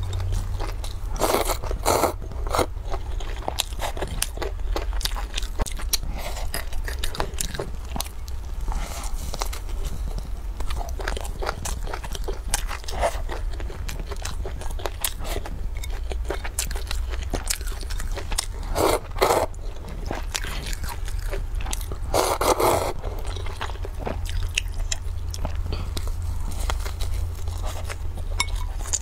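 Close-miked eating: steady chewing and crunching of a filled flatbread and glass noodles, with many small wet clicks. There are three louder slurps of noodles: about two seconds in, past the middle, and a few seconds later. A steady low hum runs underneath.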